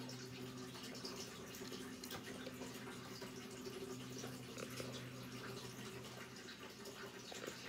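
Aquarium filter running: a faint, steady trickle of water with small drips over a low, steady hum.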